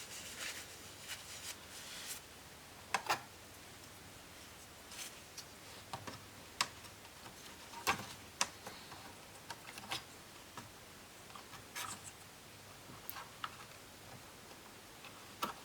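Scattered, irregular small clicks and taps of laptop parts and tools being handled on a workbench, faint overall with a few sharper knocks.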